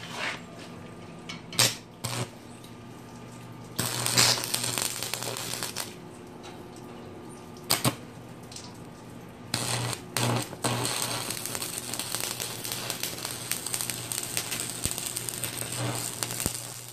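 Stick (arc) welding: the arc crackles and sputters as the electrode burns. There are a few short strikes at first, a couple of seconds of welding about four seconds in, and then a long continuous run from about ten seconds in, with a steady low hum underneath.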